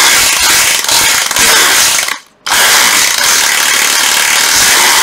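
National EZ6812 cordless hammer drill running in hammer mode, loud and steady. It stops briefly about two seconds in as the trigger is let go, then starts again.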